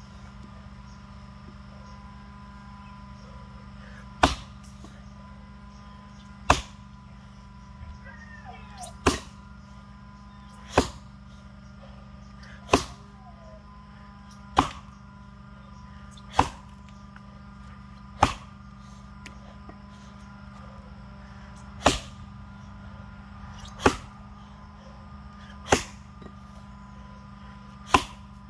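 Axe chopping into a box elder log: a dozen or so sharp chops, about one every two seconds, starting about four seconds in.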